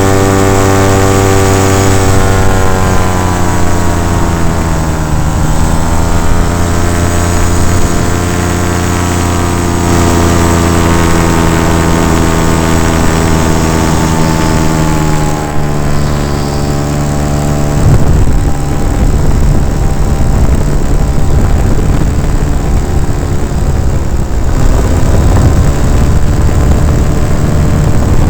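Paramotor engine and propeller running at a steady, loud pitch that dips briefly about five seconds in and comes back up; around two-thirds of the way through the steady tone breaks up into a rougher, noisier sound.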